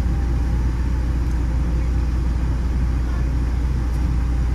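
Nissan GA13 carbureted four-cylinder engine idling steadily, a constant low rumble.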